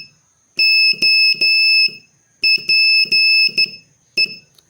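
Morse code sent as a high-pitched beeping tone, keyed out letter by letter: three long beeps (O), then short-long-long-short (P), then one short beep (E). Together with the four dots just before, this spells the practice word HOPE. There is a click where each beep starts and stops.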